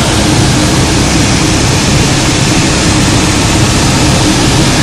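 Steady, loud drone of a light aircraft's engine and rushing airflow, heard inside the cockpit.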